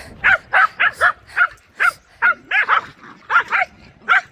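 Dog barking over and over in short barks, about three a second, during a game of fetch.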